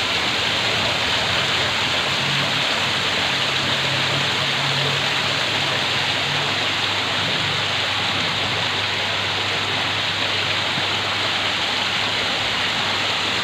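Several small waterfalls spilling off stone ledges and pipe spouts into a koi pond: steady splashing of falling water. A faint low hum sits underneath in the first half.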